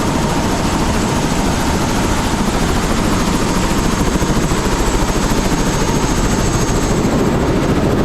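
Helicopter running with a loud, steady, rapidly fluttering rotor and engine noise, and a thin steady high whine over it.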